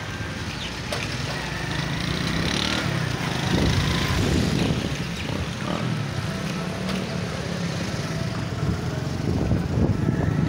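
Vehicle engine and road noise from riding along a busy city road, a steady low rumble.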